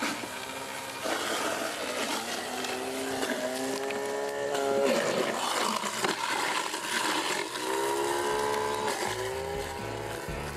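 Garbage-disposal apple grinder running under load as it grinds apple and pear pieces into pulp; its motor whine sags and climbs back in pitch a few times.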